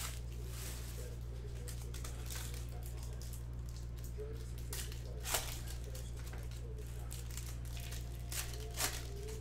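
Foil wrapper of a Topps Chrome baseball card pack crinkling and tearing as it is opened by hand, with a few sharp crackles about halfway through and twice near the end, over a steady low hum.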